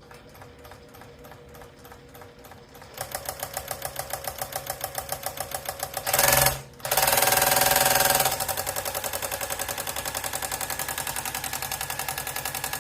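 Electric sewing machine running with no thread in, just oiled to cure stickiness and run to work the oil through. It starts with slow, even stitching strokes, speeds up about three seconds in, runs fastest and loudest for a couple of seconds around the middle, then settles into a steady fast stitching rhythm.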